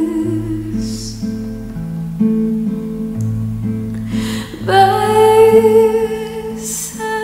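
Acoustic guitar playing a slow accompaniment with a changing bass line; from about five seconds in, a voice sings a long held note over it.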